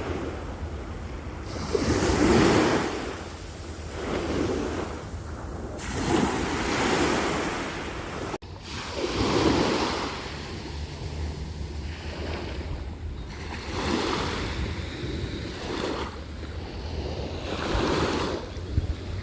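Ocean waves breaking and washing up the shore, each wave swelling and falling away every two to four seconds, over a steady low rumble of wind on the microphone. The sound cuts out for an instant about eight seconds in.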